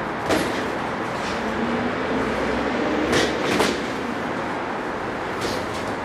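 Boxing gloves smacking during sparring: a few sharp hits, two of them close together about three seconds in, over a steady background hiss.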